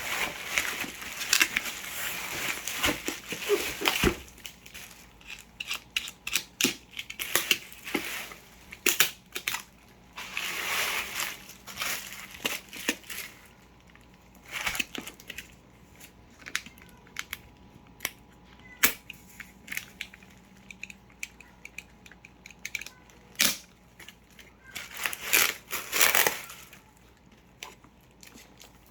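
Packaging being opened by hand: plastic and cardboard crinkling and tearing, with scattered sharp clicks and taps. There are longer rustling tears about ten seconds in and again near the end.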